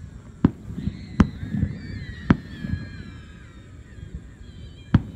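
Distant aerial fireworks shells bursting: four sharp bangs, three in the first two and a half seconds and one near the end, each followed by a low rumble. Faint high tones glide slowly down between the bangs.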